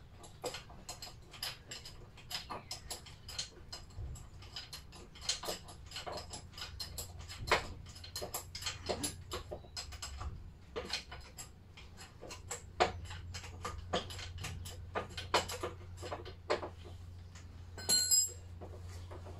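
Wrench working a bolt on a Lister D stationary engine: irregular metal clicks and taps, with a ringing metal clink near the end.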